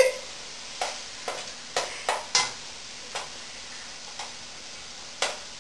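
Ground turkey frying in a pot, with a steady sizzle and a utensil knocking and scraping against the pot about eight times at irregular intervals as the meat is stirred.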